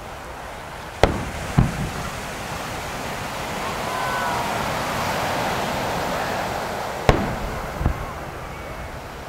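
Large aerial firework shells bursting as booms: a pair about a second in, half a second apart, and another pair about seven seconds in. Between them a swelling murmur of crowd voices rises and fades.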